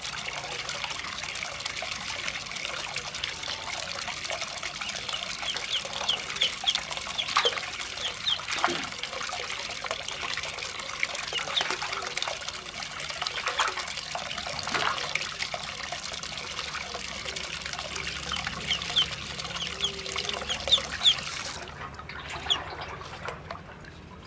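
Tap water pouring in a steady stream into a metal basin of water, stopping near the end. Ducklings peep in short high chirps over it, several in quick runs.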